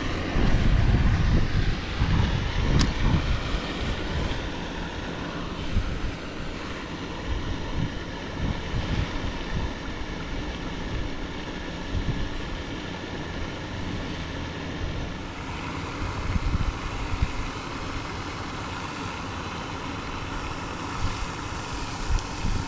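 Wind gusting on the microphone, an uneven low rumble that is strongest in the first few seconds, over a steady outdoor wash of noise.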